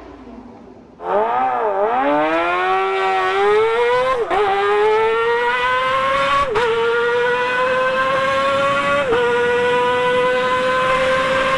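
Kawasaki ZX-25R inline-four, bored up to 300 cc with a Toce exhaust, accelerating hard: a loud, high-pitched engine note that cuts in about a second in, climbs in pitch and dips briefly at each of three upshifts a couple of seconds apart.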